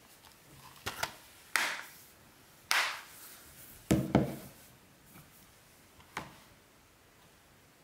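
Plastic Blu-ray keep case being handled on a wooden table: a string of sharp clicks and knocks, the loudest a double knock about four seconds in.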